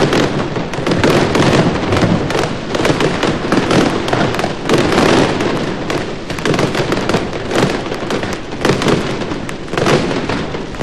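A dense, unbroken barrage of fireworks: rapid bangs and crackling follow one another without pause. This is the aerial fireworks bouquet (remellet de foc aeri) that sets the falla monument alight.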